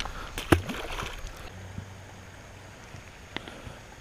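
Handling noise from fishing gear: a few sharp clicks and knocks, the loudest with a dull knock about half a second in, as the baitcasting rod and reel and a soft plastic worm are handled. A faint steady outdoor background runs underneath.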